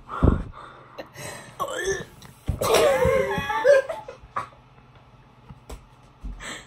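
Girls laughing and squealing, loudest from about two and a half to four seconds in, with a low thump just at the start.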